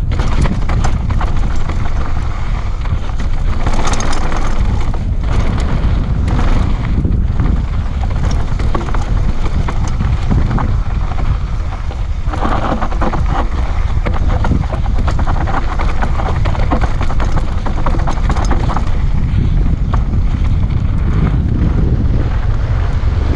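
Wind buffeting the action camera's microphone as a mountain bike rides down a dirt and gravel trail, with tyres crunching over loose stones and the bike rattling over bumps.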